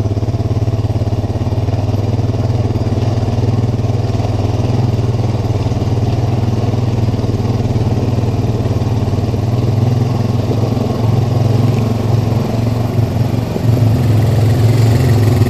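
Single-cylinder ATV engine running steadily at low speed as the quad creeps along a rough trail.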